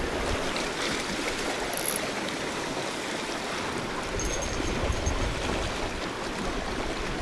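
Sea water washing steadily over shoreline rocks.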